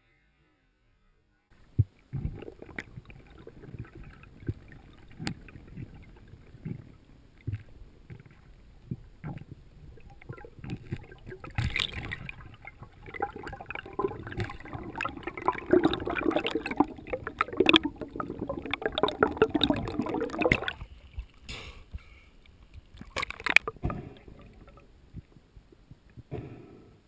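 Muffled underwater sounds from a speared tilapia being handled: scattered knocks and clicks of the spear shaft and gear, then a busier stretch of water churning and bubbling in the second half, with a few more knocks near the end.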